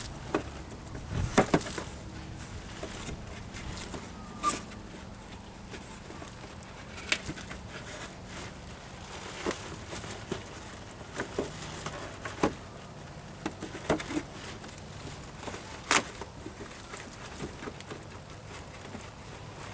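Irregular sharp clicks and knocks, a second or a few seconds apart, over a steady background hiss.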